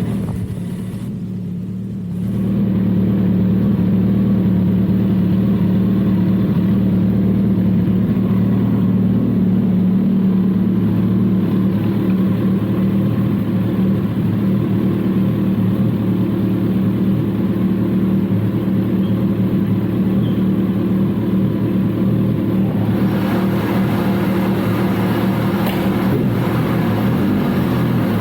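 Kawasaki ZX14R inline-four running hard on a dyno through a Brock's Alien Head exhaust; after a short dip in level about a second in, it runs loud and nearly steady at high revs.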